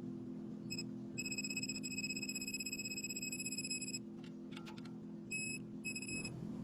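Electronic beeping of a digital torque wrench as the oil pickup tube bolt is brought to its 106 inch-pound spec: a short blip, then one long high beep of about three seconds, then two short beeps near the end. A steady low hum runs underneath.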